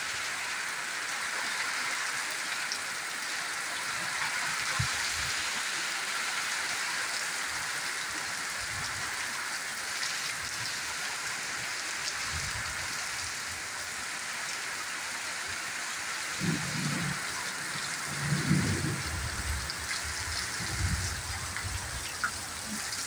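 Heavy rain pouring down onto a bare, waterlogged dirt yard: a steady, even hiss. Irregular low rumbles come in during the second half.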